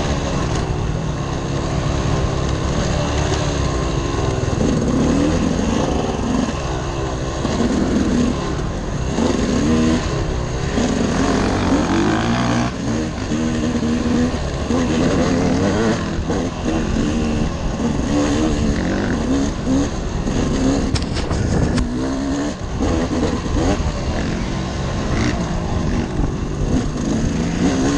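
Dirt bike engine revving up and down as the rider accelerates and backs off along a trail, heard close from the rider's helmet.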